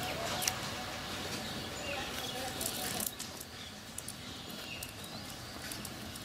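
A cast net being handled on wet, muddy ground: soft rustling of the mesh with scattered light clicks.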